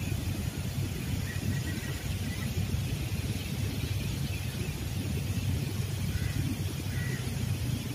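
Steady low rumble of outdoor background noise, with a few faint short high chirps now and then.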